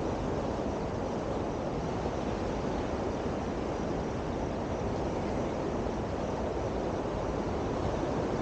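Steady rushing noise of coastal wind on the microphone, even and unbroken, with no distinct events.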